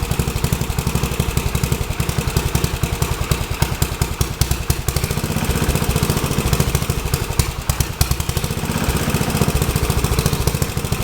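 Rebuilt Troy-Bilt tiller engine running steadily after starting, a fast, even beat of firing strokes.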